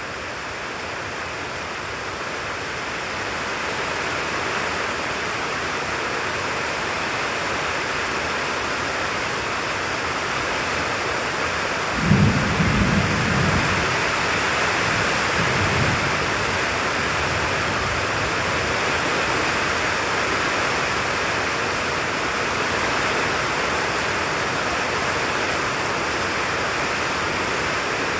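Heavy tropical rain falling steadily in a thunderstorm, with a low roll of thunder about twelve seconds in that rumbles on for a few seconds.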